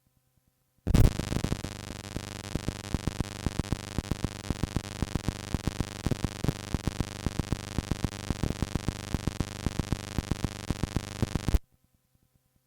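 A steady electronic tone of many pitches held without change, with a quick run of sharp clicks about five a second, played back from an old cassette tape. It starts abruptly about a second in and cuts off abruptly near the end.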